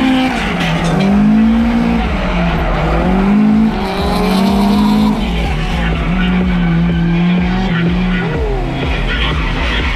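Toyota AE86 Corolla drift car's engine revving up and down through a drift, its pitch rising and falling every second or so, with tyres squealing and skidding underneath. The engine note holds steady for a couple of seconds, then drops away near the end.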